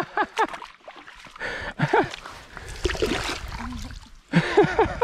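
Water splashing as a largemouth bass is lifted thrashing from the shallows at the water's edge, with short wordless shouts that rise and fall near the start, about two seconds in and again near the end.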